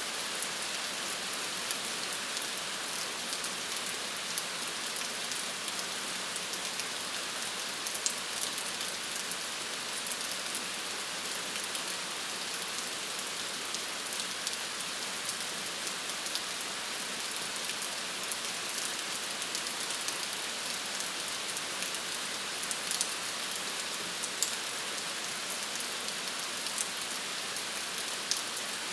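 Steady rain falling, an even hiss with many small drop patters, used as sleep ambience.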